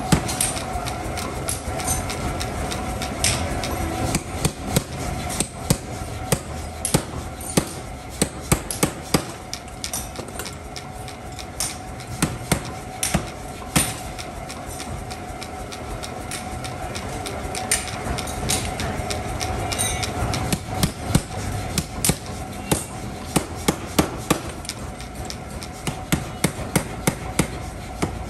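Mechanical power hammer forging a red-hot iron hammer blank held in tongs: its ram strikes in irregular runs of quick blows with short gaps, over a steady machine hum.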